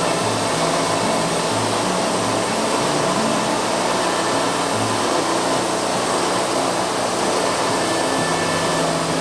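Band sawmill running steadily as it cuts through a cedar log, a constant loud whirring noise, with background music's bass notes stepping underneath.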